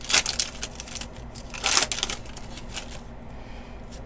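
Trading cards being handled and flipped through by hand: short papery swishes and snaps, two louder ones at the start and a little under two seconds in, with lighter ticks between, then quieter.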